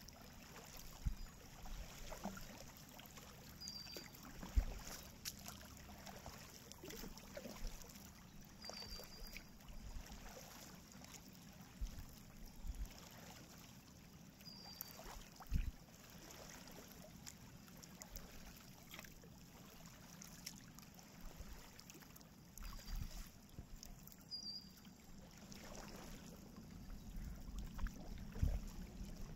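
Kayak paddling: a double-bladed paddle dipping and pulling through calm river water, with drips and splashes and occasional light knocks. The whole sound is faint.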